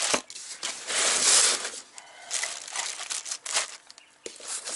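Clear plastic wrapping crinkling and rustling in irregular bursts as wrapped coilover parts are handled, loudest about a second in, with a short lull near the end.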